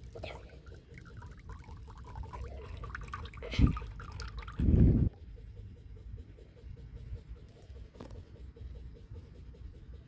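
Small wet trickling and ticking as a cable tie pokes and stirs the water in a miniature clay toilet's bowl, working at a clog of paper napkin. Two short, loud, low thumps land around the middle, the second the longer.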